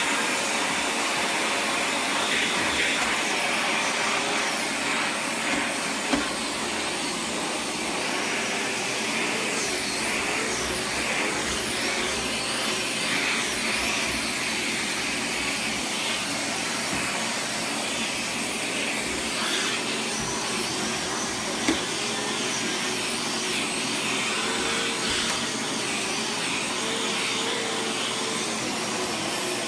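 Dyson DC77 Animal upright vacuum running steadily, sucking through its wand and tangle-free turbine tool as the tool is worked over carpeted stair treads. Two brief knocks stand out, about six seconds in and again about twenty-two seconds in.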